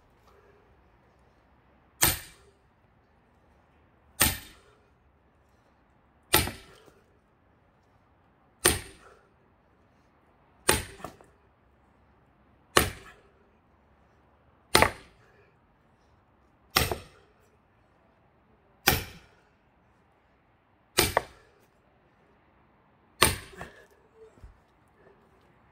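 Eleven sharp blows in a steady rhythm, about one every two seconds: an axe striking a thick pine log to split it for firewood.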